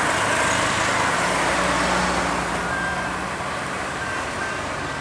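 Road traffic: a passing motor vehicle's engine and tyre noise, steady, then easing off slightly about halfway through.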